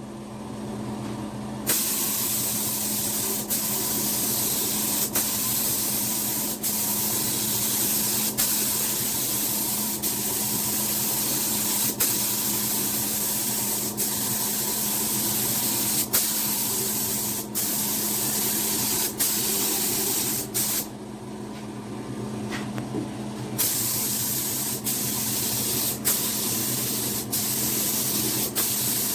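Paint being sprayed onto a repaired plastic car bumper: a steady spray hiss over a low, even hum. The spray stops briefly near the start and again for a couple of seconds about two-thirds of the way through.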